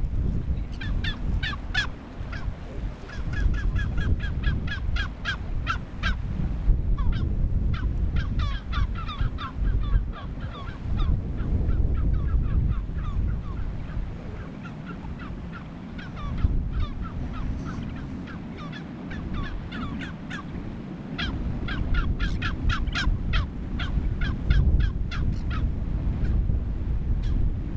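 A bird calling in rapid runs of short, pitched notes, several a second, from about 1 to 13 seconds in and again from about 21 to 27 seconds in. Wind rumbles on the microphone underneath.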